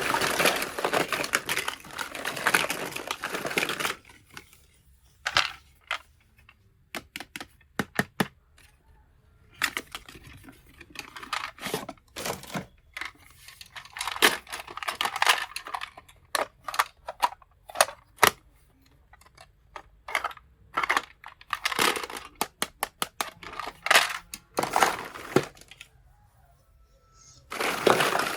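Plastic packaging crinkling and tearing as a toy kitchen set is unboxed, in long rustling stretches, with many sharp clicks and taps of small toy pieces being handled and set down in between.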